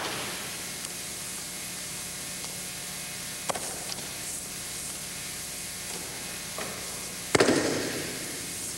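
Thuds and slaps of bodies and hands on gym mats, ringing briefly in the hall, over a steady tape hiss. A sharp one comes at the start, a smaller one about three and a half seconds in, and the loudest about seven seconds in.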